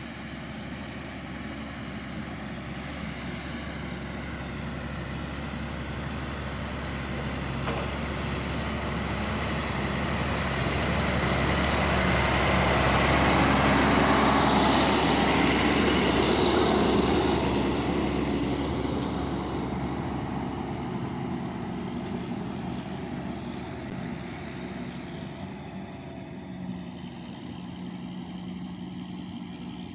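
Heavy farm machinery engine running steadily at silage harvest, heard from inside the cab. It grows louder toward the middle, then eases off again.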